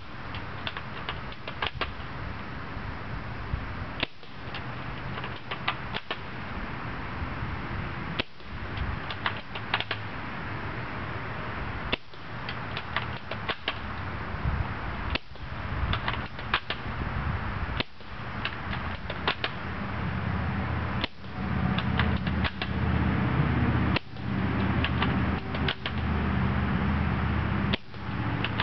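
UTG MK96 spring-powered airsoft sniper rifle being cocked and fired over and over: clusters of sharp mechanical clicks and snaps every couple of seconds over a steady hiss. A low rumble grows louder in the last third.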